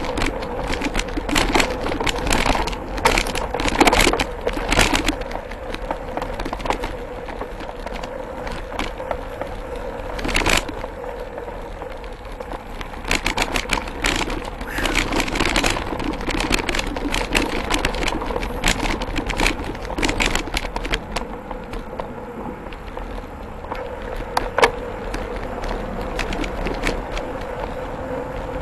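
Mountain bike rolling over a dirt trail: a steady tyre-and-drivetrain noise with frequent clicks and rattles as the bike and its handlebar-mounted camera jolt over bumps.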